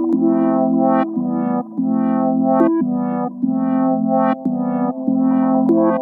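Background music on a synthesizer: sustained keyboard chords that change about once a second.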